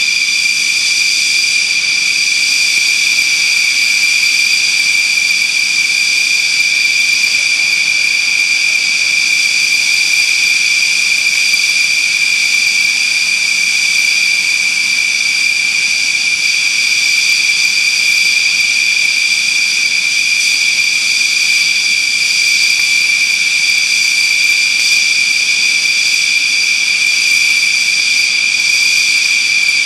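Dassault Rafale's twin Snecma M88 jet engines running at low taxi power: a steady, high-pitched whine with overtones that holds unchanged throughout.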